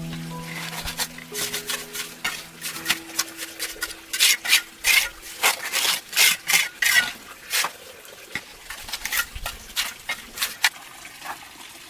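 A rapid, irregular series of short scraping and tapping strokes, densest in the middle, as of hand work on a rough material. A held music chord fades out over the first few seconds.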